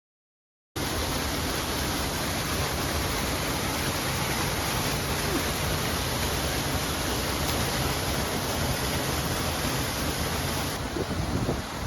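Steady rush of flowing water from a creek or waterfall, starting suddenly just under a second in. Near the end it thins and gusts of wind buffet the microphone.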